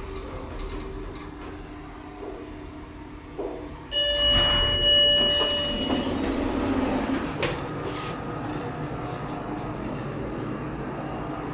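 Omer hydraulic elevator arriving at its floor: a low hum from the car, then about four seconds in an electronic tone sounds for a second or two as the automatic doors slide open with a rumble, ending in a click.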